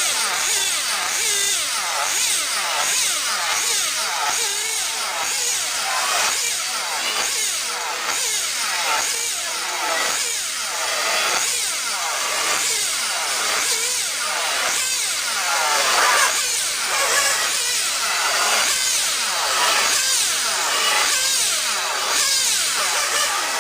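Small nitro engines of 1/8-scale RC cars running on the track, their high-pitched whine rising and falling over and over as the cars accelerate, brake and pass.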